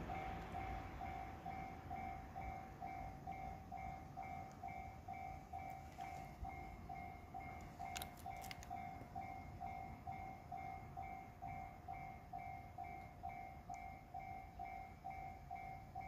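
Japanese level-crossing warning bell ringing with a steady, evenly repeated electronic ding, about three times a second, signalling that a train is approaching and the barriers are down.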